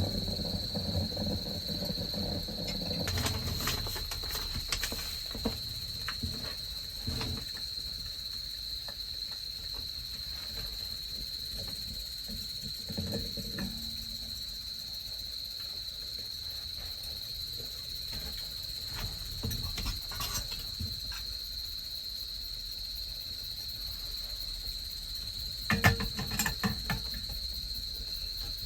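Autumn crickets chirping continuously in one steady high-pitched band, with scattered light clicks and knocks, a small cluster of them near the end.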